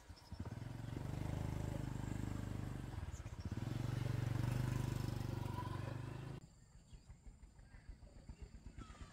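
A small engine running close by, easing off briefly about three seconds in and picking up again, then cutting off suddenly a little after six seconds; faint rhythmic ticking follows.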